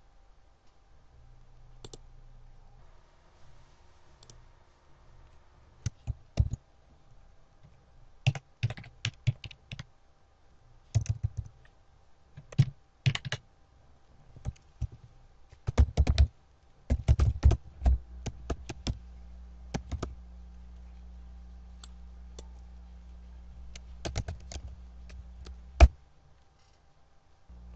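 Typing on a computer keyboard: irregular bursts of keystrokes as a username and password are entered, ending with a single sharp click near the end.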